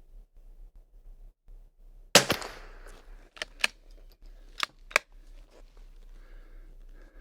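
A single Kimber .22LR rifle shot about two seconds in, a sharp crack with a short ringing tail. It is followed by four quieter, sharp mechanical clicks over the next few seconds as the action is cycled for the next round.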